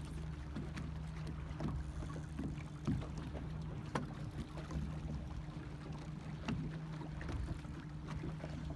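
Motorboat engine idling with a steady low hum, with scattered light knocks over it.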